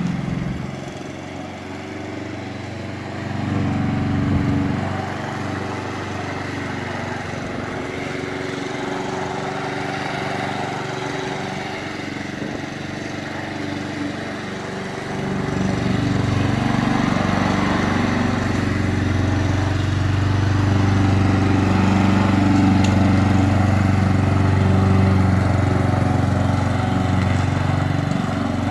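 Honda IZY HRG 466 SK petrol walk-behind lawn mower running steadily while cutting grass. It grows louder about halfway through.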